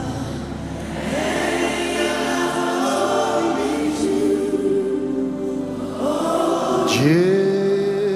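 Gospel worship music: voices sing a slow Yoruba praise song in long held notes over sustained instrumental accompaniment, and a new phrase slides up into a held note about seven seconds in.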